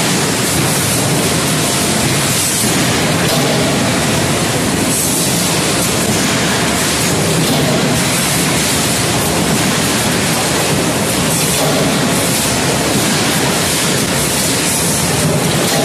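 Steady factory noise from an automatic table-knife forging line: a loud, continuous rushing hum with no separate blows standing out.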